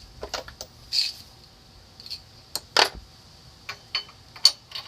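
Metal hand tools clinking and clicking, a string of short sharp metallic knocks as sockets and a wrench are handled and fitted.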